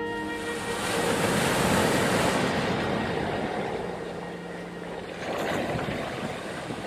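Small waves washing in over a flat sandy beach, a hiss of surf that swells about a second in, eases off and rises again near the end.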